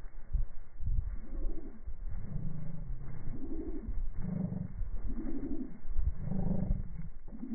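Domestic duck giving a series of short, low calls, about one a second, starting about a second in.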